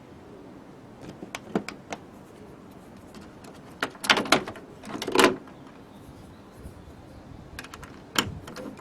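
A few light clicks, then two louder clattering knocks about four and five seconds in, and another knock near the end: hard parts being handled and knocked together.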